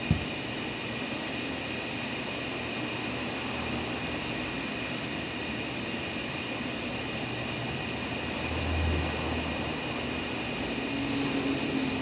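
Electrolux EWS10 pressure washer running steadily after its cam, thrust bearing, piston and seals were replaced, with a short knock at the start and a brief low swell about nine seconds in.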